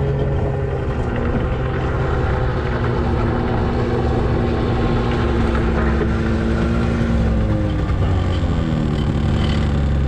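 Engine-driven ice auger running steadily while drilling a hole in lake ice; its pitch drops about seven to eight seconds in, as the engine bogs down under load.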